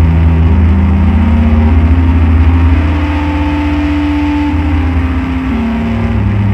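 Loud electronic drone-noise music: a heavy, steady low drone with sustained tones stacked above it that step to new pitches every second or so, over a dense layer of noise.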